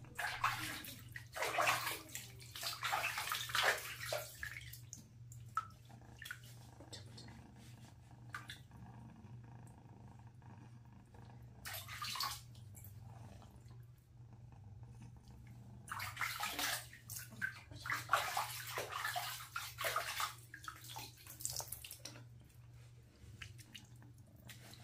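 Water splashing and sloshing in a plastic basin as a kitten is washed by hand, in bursts: for the first few seconds, briefly around the middle, and again for several seconds later on. Water runs off the lifted kitten back into the basin.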